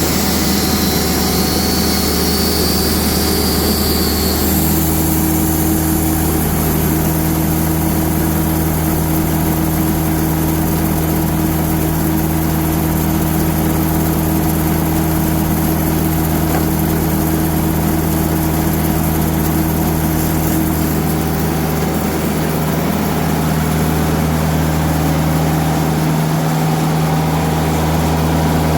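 Diesel engine of a TimberKing band sawmill running steadily while the mill works through a birch log; the engine note shifts slightly about four seconds in.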